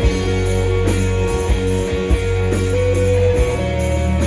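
Live country-rock band playing an instrumental passage: guitars, bass and drum kit with a steady beat, no vocals.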